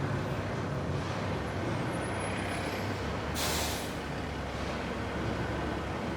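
Big industrial machine running steadily in a factory, a dense low rumble with a mechanical clatter. About three and a half seconds in comes a short, sharp hiss of released compressed air.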